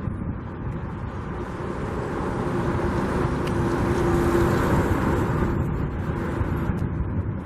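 Freeway traffic noise, a steady rush that swells about halfway through as a vehicle passes close by, then eases again.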